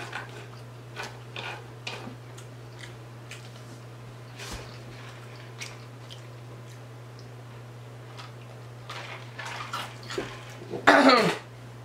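Close-up mouth sounds of eating: soft wet chewing and lip-smacking clicks on fried fish, with sips of a drink from a large foam cup, over a steady low electrical hum.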